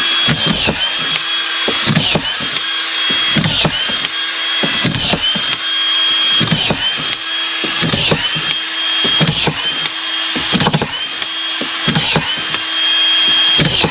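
Makita autofeed drywall screwdriver running continuously while it drives about ten collated screws into timber, one roughly every second and a half. Each drive pulls the motor down with a click, then the motor picks back up. Fitted with a PH bit to match the Phillips screws, it drives in a steady rhythm without jamming.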